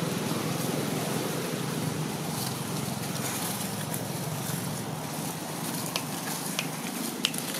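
Steady low outdoor background rumble, with a few faint clicks near the end.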